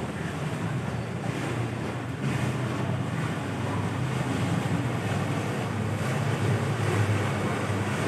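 Motor of a river cruise tour boat running steadily, its low hum growing a little louder near the end as the boat approaches, with wind on the microphone.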